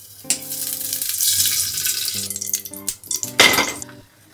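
Ghee sizzling and crackling as it goes into a hot aluminium pressure cooker, a steady hiss with a louder flare near the end.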